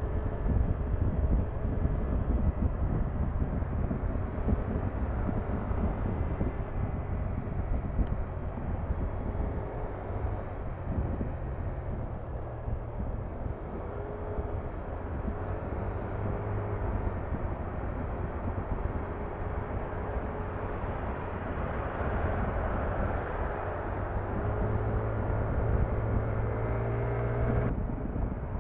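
Yamaha NMAX maxi-scooter's single-cylinder four-stroke engine and CVT running at road speed, with steady wind and road rush. The engine note strengthens in the second half as the scooter accelerates.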